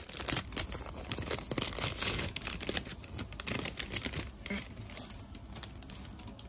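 Glossy plastic toy packaging being torn open and crinkled by hand: a dense run of rustling and crackling, busiest in the first few seconds and thinning out near the end.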